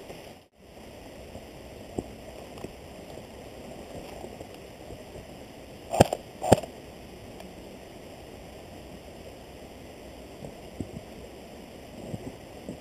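Steady outdoor background hiss with two sharp cracks about half a second apart near the middle, and a brief dropout to silence about half a second in.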